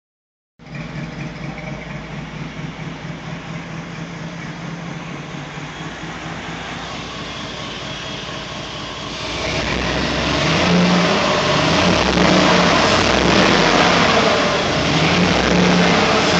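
LSX V8 engine in a 1974 Chevrolet C10 running rough with an uneven, pulsing beat: a misfire with the engine firing on only four cylinders, caused by a loose ground wire for the ignition coils. It gets louder about nine seconds in.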